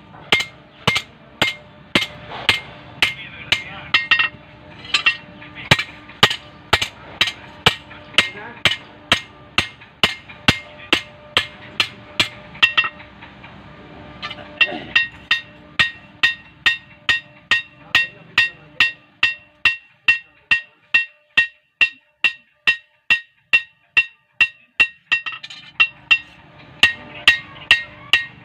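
Steady hand-hammering of an old tree-cutting knife's steel blade on an iron anvil: sharp metal-on-metal blows about two a second, each with a short ring.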